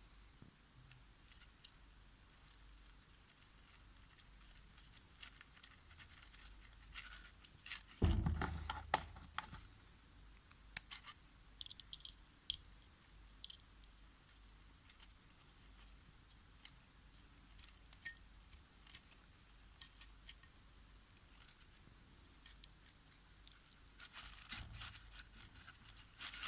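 Faint, scattered clicks and clinks of small metal parts being handled while a car alternator is reassembled, with one heavier knock about eight seconds in.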